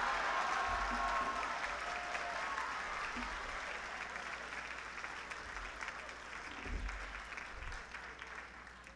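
Audience applauding, with a few voices in the crowd at first; the clapping is loudest at the start and gradually dies away.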